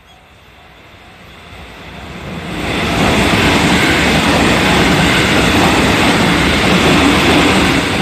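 A 313 series electric multiple-unit train passing close by, its rumble building until the cars go by at a loud, steady rush from about three seconds in. A faint, evenly repeating level-crossing bell rings at the start.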